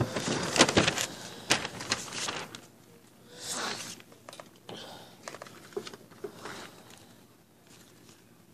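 Rustling and crinkling handling noise with many small clicks, dense for the first couple of seconds, then thinning out and dying away after about seven seconds.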